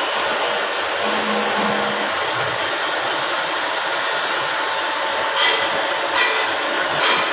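Metro metal lathe running with a steady whirring hum, with three short, louder bursts in the last two seconds or so.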